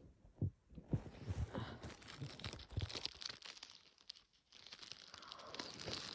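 Wet, crackly nose blowing into a tissue from a nose congested with a cold: one long blow, a short pause, then a second blow that builds louder toward the end.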